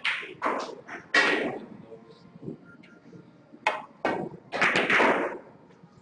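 Sharp knocks and clicks of snooker play, the cue striking the cue ball and balls hitting, echoing in a small room. There are two clusters, one near the start and a louder one about four to five seconds in.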